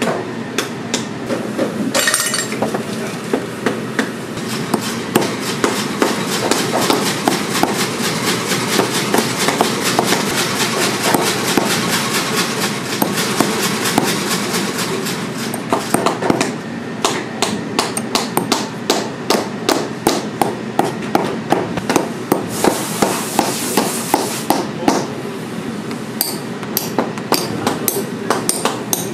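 Hammer driving nails into a boot's rubber heel lift and heel stack, a long run of quick light strikes. There is a short break about two-thirds through, then evenly spaced taps at about three a second.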